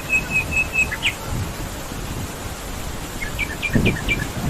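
A bird calling in quick series of short, repeated high notes, first a run of even notes and then, after a pause, a run of downward-slurred notes. Beneath it there is a steady low rushing noise, and a brief low thud comes a little before the end.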